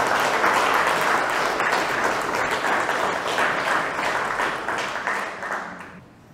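Audience applauding, fading away and stopping about six seconds in.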